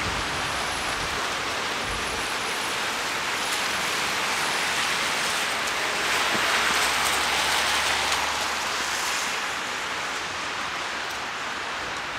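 Heavy rain hissing steadily on a city street. In the middle a vehicle passes on the wet road: the hiss swells, with a low hum, then fades.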